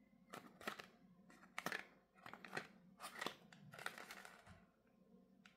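Fingers handling and turning a small cardboard box, the card scraping and crinkling in a series of short, faint scratches.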